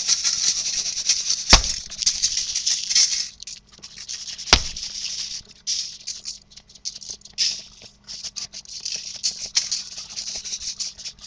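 Seasoning salt shaken from its shaker onto raw pork steaks: a dry rattling patter of granules in irregular bursts, with two sharp clicks, about a second and a half in and again three seconds later.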